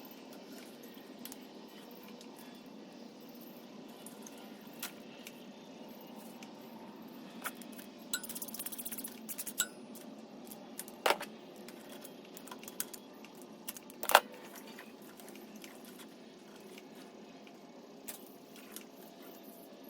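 Scattered metallic clinks and clicks of hand tools and small metal parts being handled. There is a brief fast rattle about eight seconds in, and two sharper, louder clinks later.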